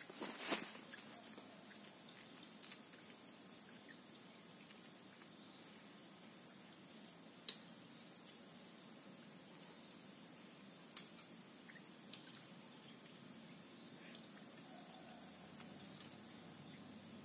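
Steady high-pitched insect drone, with two sharp clicks a few seconds apart.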